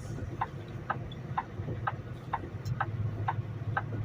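Semi-truck turn signal clicking steadily, about two clicks a second, over the low steady hum of the diesel engine heard from inside the cab.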